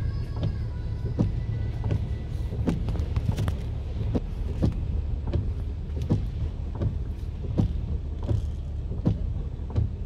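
Heavy rain and a stopped car heard from inside the car's cabin: a steady low rumble, crossed by a sharp, regular knock about every three quarters of a second.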